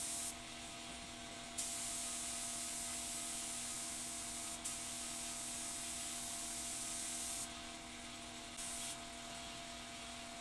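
Paint spray gun hissing in trigger-pulled bursts as it sprays primer: one long spray of about six seconds, then a short one near the end. A steady hum runs underneath.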